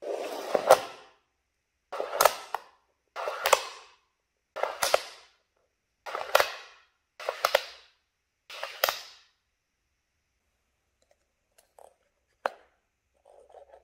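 Neodymium magnets clacking onto the ends of batteries, seven times in quick succession, each a brief clatter with one or two sharp clacks. A single sharp click comes about four seconds after the last one.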